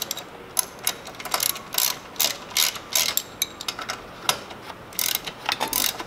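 Hand socket ratchet (Craftsman) clicking in quick runs of back-strokes as a 7/16 bolt is tightened, with a short lull a little past halfway.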